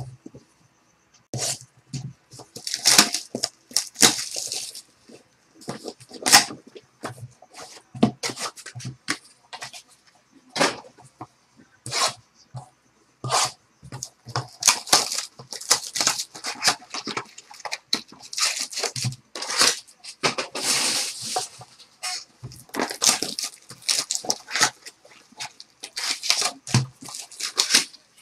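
Hands opening a Topps Triple Threads baseball card box and its packaging: plastic and foil wrapping crinkling and tearing, cardboard scraping, with scattered sharp clicks and knocks.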